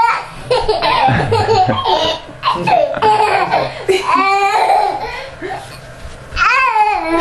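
A young boy laughing hysterically in repeated bursts, with a long run of quick ha-ha-has about four seconds in and another loud burst near the end.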